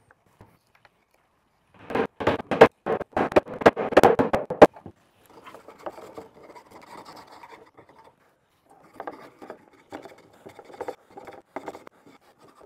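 A quick run of sharp wooden knocks and scrapes, then a series of shorter scraping strokes from a small hand plane shaving a proud wooden bow-tie key down flush with the slab.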